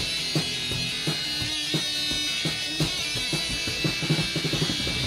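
Rock music instrumental passage: drum kit with bass drum and snare hits under a sustained electric guitar.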